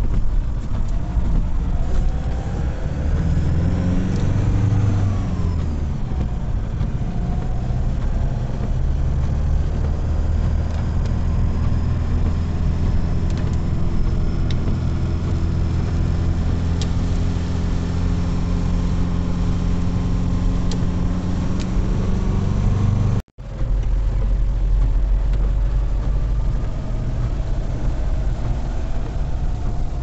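Car engine and tyre noise heard from inside the cabin while driving on a wet road, the engine note gliding up and down and then holding steady for a long stretch. The sound drops out for a moment about three-quarters of the way through.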